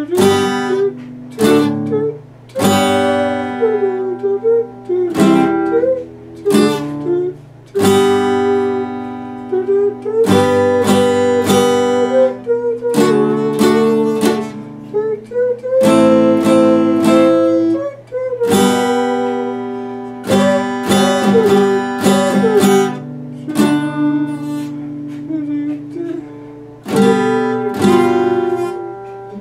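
Epiphone steel-string acoustic guitar being strummed, chords ringing out in phrases with short breaks between them, and a voice singing along.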